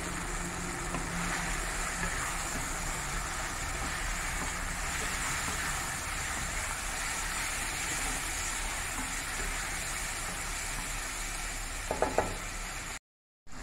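Prawns, onions and spice powders sizzling in a hot oiled nonstick kadai while being stirred and tossed with a wooden spatula. A steady sizzle that cuts out completely for a moment near the end.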